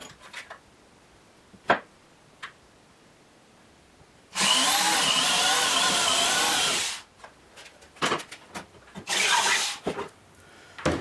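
Corded electric hand drill boring a pilot hole through plywood. The motor whine wavers as the bit cuts, for about two and a half seconds, beginning about four seconds in. A shorter burst follows near nine seconds, with handling clicks before and between the runs.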